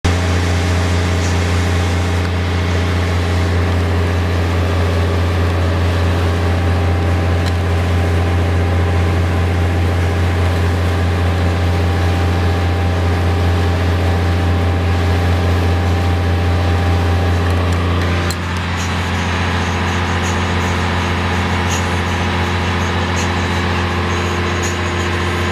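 Boat engine running at a steady, unchanging pitch, heard from aboard as a loud low drone. About 18 seconds in the sound changes: the engine hum carries on a little quieter, with faint regular ticking from a mechanical alarm clock.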